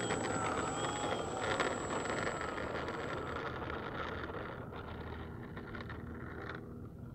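A radio-controlled model airplane's propeller motor running at takeoff power, fading steadily as the plane speeds away down the runway. A high, steady whine drops out about halfway through.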